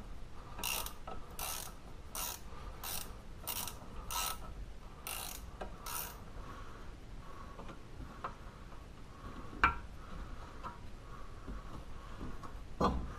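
Hand ratchet wrench worked in short strokes on a bolt at the front hub, its pawl rasping on each back-swing about eight times in the first six seconds. A sharp metallic click comes near ten seconds and a single knock just before the end.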